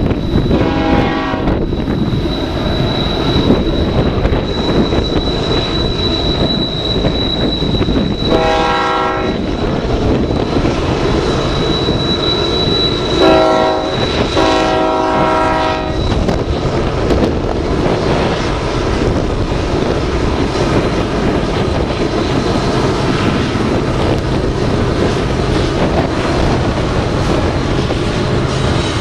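Union Pacific freight locomotive's air horn sounding four blasts spread over the first half, the last one the longest, over the low steady rumble of the train's diesel locomotives. After the horn, freight cars roll by with a steady rumble and clatter.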